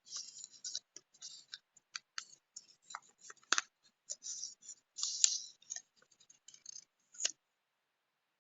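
Small items and paper being handled at close range: a string of irregular short rustles and small clicks, with a couple of sharper ticks about three and a half and five seconds in.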